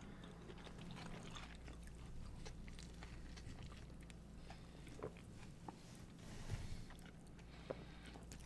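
Faint chewing and wet mouth clicks of people eating, with a few sharper ticks in the second half.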